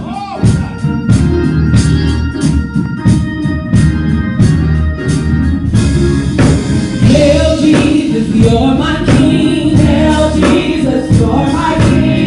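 Live church gospel music: organ chords over a steady, regular beat, with singing coming in about six seconds in.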